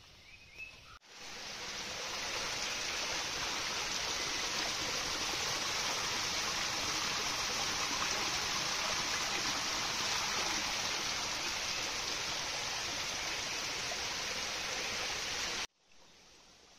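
Rushing water of a forest stream, a steady, even hiss that starts abruptly about a second in and cuts off abruptly near the end.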